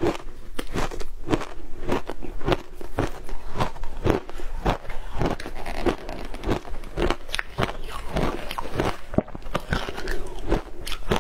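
Frozen matcha ice being bitten and chewed, a steady run of sharp crunches at about three a second.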